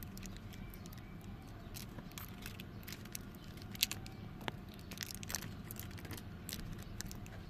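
Adhesive tape being handled and pressed into place: faint crinkling and tearing with scattered small clicks.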